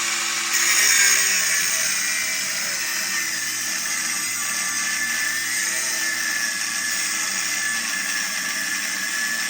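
Cutoff wheel cutting through a truck's lower control arm: a steady, high-pitched whine and hiss of an abrasive disc on metal. It swells about a second in as the wheel bites, then holds steady.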